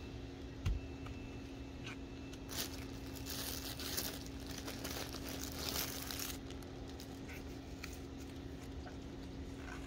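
A crinkling, crackling rustle lasting about four seconds, starting a couple of seconds in, after a single soft thump, over a low steady hum.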